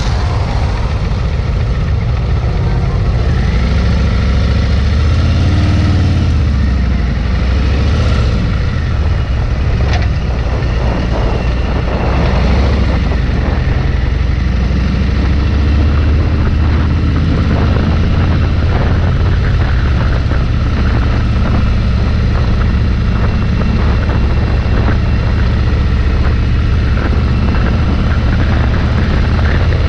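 Bagger motorcycle engine pulling away from a stop. The note climbs and drops back several times as it shifts up through the gears over the first dozen seconds, then it runs at a steady cruise.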